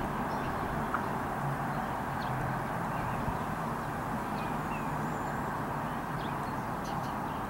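Steady hum of distant traffic, with a few faint bird chirps over it.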